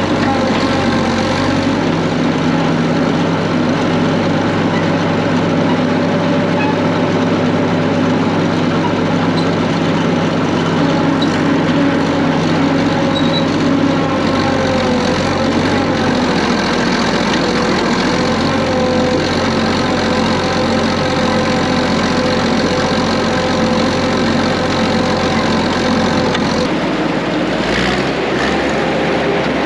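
Caterpillar D6 crawler dozer's diesel engine running steadily as the dozer is driven, heard from the operator's seat. A couple of seconds before the end the engine's low tone shifts lower.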